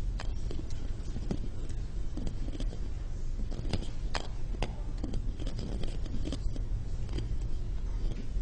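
Two golf balls rolled around together in one palm, clicking and rubbing against each other in short, irregular clacks over a low steady hum.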